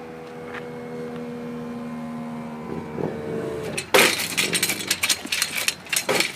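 Steady drone of a departing Class 156 diesel unit, with several held tones, growing a little fuller about three seconds in. About four seconds in it gives way to loud, irregular crackling and rumbling noise.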